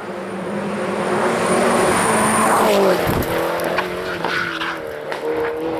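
A MINI Cooper S JCW race car approaching at speed into a hairpin and getting louder. Its engine note drops in pitch about halfway through, then holds as it takes the bend, with tyre squeal and a few sharp cracks.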